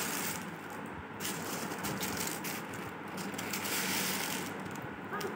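Small white pebbles and gravel crunching and rattling under children's hands as they are scooped from a plate and dropped into foil trays of sand, a steady crackle.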